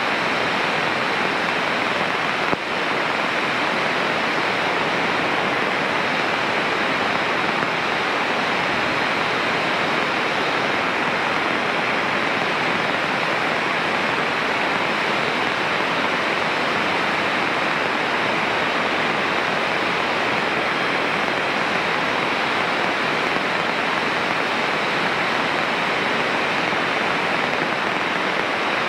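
Steady rushing cabin noise of a Cessna 152 in flight, the engine and airflow blended into an even hiss. There is one short click about two and a half seconds in.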